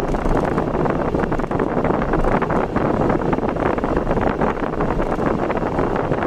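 Wind buffeting the microphone over the steady rumble of a vehicle travelling along a road, a constant rush with flickering gusts.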